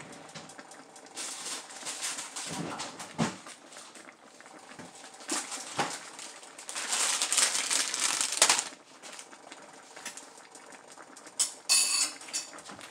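Kitchen handling sounds: a plastic bag of spinach rustling for a couple of seconds about seven seconds in, among scattered knocks and clicks.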